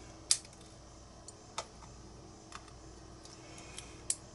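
Scattered small metal clicks and taps as lock pins and springs are handled and set down while a pin-tumbler lock is taken apart, with about six irregular clicks, the sharpest just after the start and near the end.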